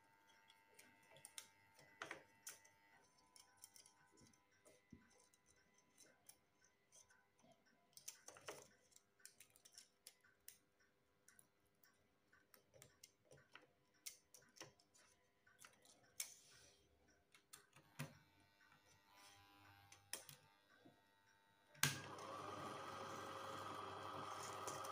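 Small clicks and taps of film and a plastic take-up reel being handled while threading a LOMO Russ 8mm/Super 8 projector. Near the end a switch clicks and the projector starts running steadily.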